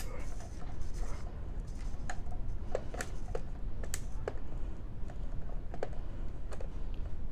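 Irregular light clicks and taps of a plastic radio case and small parts being handled while the case is worked open, over a steady low background rumble.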